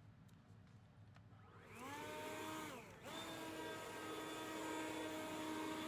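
Cordless electric leaf blower whining up to speed a little under two seconds in, easing off briefly around three seconds, then spinning back up and running steadily.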